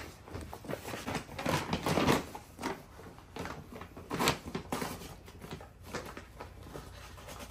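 Paper gift bag rustling and crinkling in irregular bursts as a dog noses and roots around inside it to get at the present.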